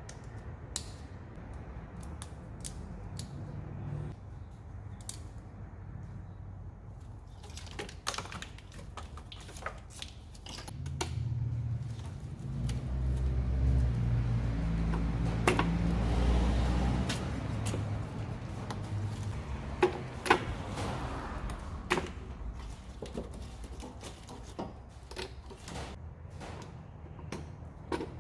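Sharp plastic clicks and snaps of electrical connectors being unplugged from an engine wiring harness, with light rattling of wires and small parts. A low rumble swells for several seconds in the middle.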